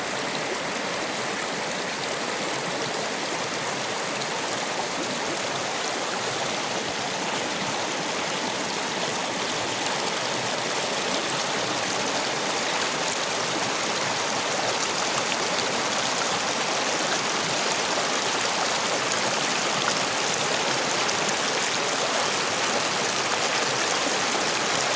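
Mountain creek rushing over rocks: a steady, full wash of running water.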